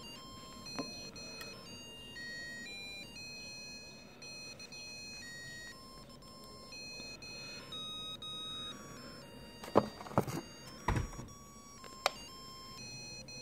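A 1980s Golden 16 Melody Chrono digital watch playing one of its built-in electronic melodies: thin beeping notes that step from pitch to pitch. A few sharp clicks or knocks come in about ten to twelve seconds in, louder than the tune.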